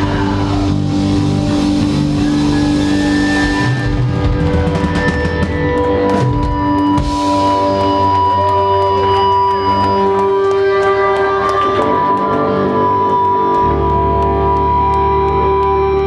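Rock band playing live, with guitars and drums and long held notes. A heavier, deeper bass comes in about two-thirds of the way through.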